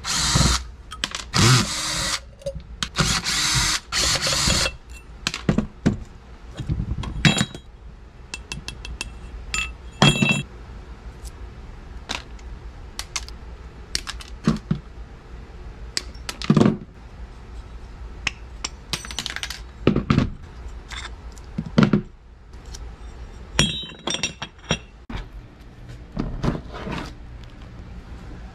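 Hand tools and small metal parts from a dismantled blower motor being handled on a metal workbench: a few seconds of scraping and rattling near the start, then scattered clinks and knocks of screws and tools, some ringing briefly.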